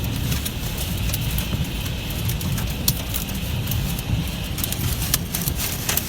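Heavy storm rain with hail pelting down: many sharp, irregular clicks of hailstones striking hard surfaces over a steady hiss of rain and a low rumble underneath.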